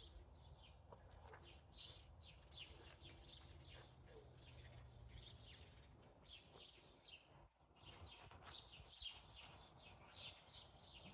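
Faint outdoor birdsong: many quick, high chirps that slide downward, several a second, over a low background rumble.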